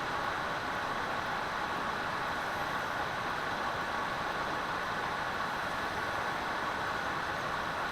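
Steady, even hiss with no changes in level or pitch, of the kind an FPV DVR records as analog receiver static.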